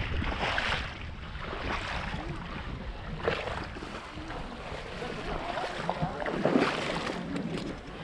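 Water sloshing and splashing in irregular surges over a low rumble of wind on the microphone.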